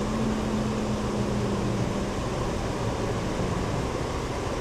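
Steady machine noise: an even rushing sound with a low hum and a faint tone that fades out about two seconds in.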